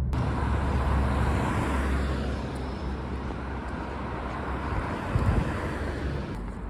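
Steady road and wind noise of a car travelling at highway speed: a rush of tyres and air over a low rumble. It begins abruptly, and its hiss turns duller near the end.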